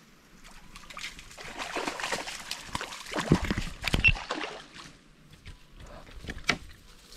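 Water splashing and sloshing, heaviest from about a second and a half to four and a half seconds in, with two heavy thumps near the middle, then scattered light knocks and clicks.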